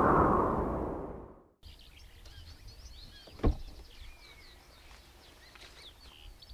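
A rushing whoosh fades out over the first second and a half; then birds chirp and call faintly, with a single sharp knock about three and a half seconds in.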